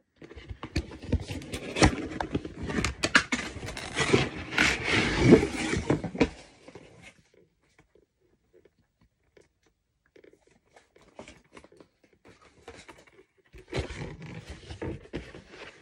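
Cardboard toy box being pulled open at its pull tab: a dense run of tearing and rustling with sharp clicks for about six seconds, then a pause, then more rustling and handling near the end.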